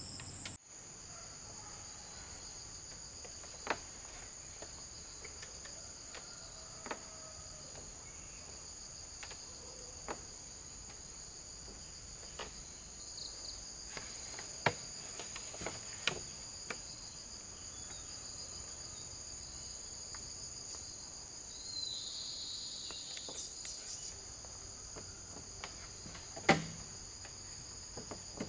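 A steady chorus of forest insects, a continuous high shrill chirring in two bands, with scattered faint clicks and one louder knock near the end.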